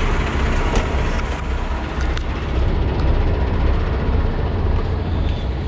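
Steady low rumble and hiss of outdoor noise beside a parked semi-trailer, with a few faint clicks.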